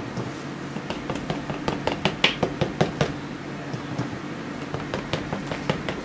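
Irregular light taps and clicks of a brush dabbing oil paint onto a stretched canvas, over a steady low hum.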